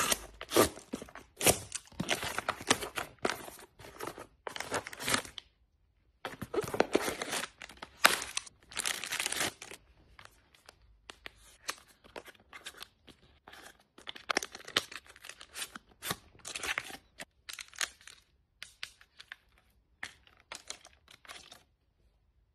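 Parcel unboxing: packing tape on a cardboard box is slit and torn and the flaps are handled, in dense rustling bursts. After about ten seconds it turns to quieter, scattered crinkles, taps and clicks as a small card product box is opened. These stop shortly before the end.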